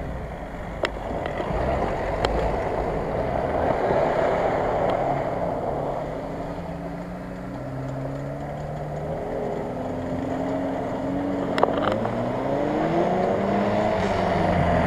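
Subaru Forester's flat-four boxer engine revving up and down as the car drives through soft mud. Its pitch rises and falls repeatedly through the second half, climbing as the car swings round toward the listener, with a few sharp clicks along the way.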